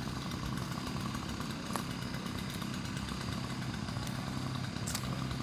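An engine idling steadily, with a faint click or two.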